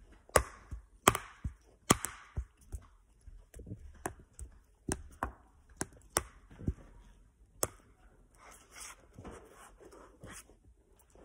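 Chocolate cookies being bitten and crunched close to the microphone: a string of sharp, irregular crunches, the loudest in the first two seconds, then softer, more scattered ones.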